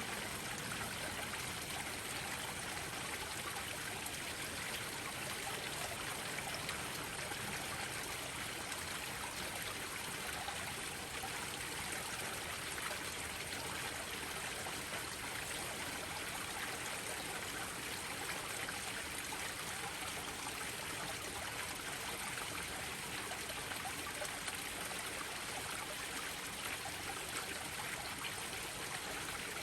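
Garden pond waterfalls splashing into a koi pond: a steady, even rush and trickle of falling water.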